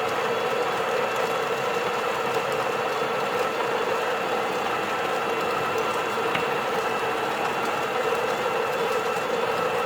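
Espresso machine's pump running steadily, with a constant hum, while brewing a double shot through the portafilter.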